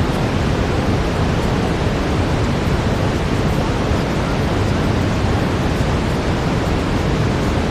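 Steady synthetic brown noise: an even, unbroken rushing hiss weighted toward the low end.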